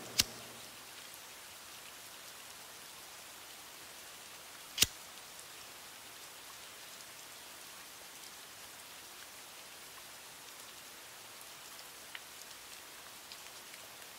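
A steady soft hiss with scattered faint ticks, broken by two loud sharp clicks: one right at the start and one about five seconds in.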